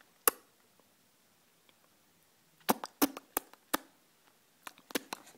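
A five-month-old baby making sharp clicking and smacking noises with his tongue and lips: one click just after the start, a quick run of about five in the middle, and a few more near the end.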